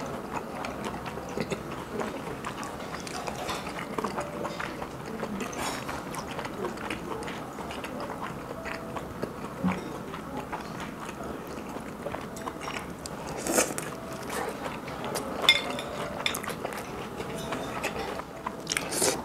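A person chewing and biting food close to the microphone, with scattered small clicks and a few sharper clinks, likely cutlery or dishes, over a steady low background.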